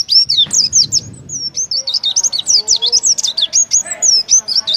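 Oriental white-eye (pleci) singing a fast, unbroken run of high chirps and sweeping whistles. This is the rapid 'tembakan' (shooting) delivery of a bird in full song, the phrasing that songbird-contest judges favour.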